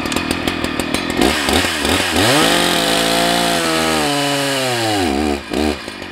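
Husqvarna 181 SE two-stroke chainsaw running hard and cutting through a log round. The engine pitch climbs about a second in, holds, then sags and falls as the chain takes the load, dropping low near the end.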